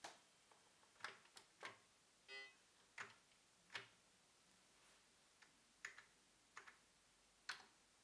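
Keys pressed one at a time on an Apple IIGS keyboard: about nine separate clicks at uneven intervals, while navigating the computer's menus. A short pitched beep sounds a little over two seconds in.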